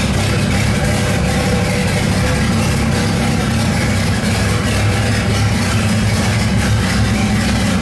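Turbocharged square-body VW Gol engine idling steadily, freshly started after the car sat unused for a long time.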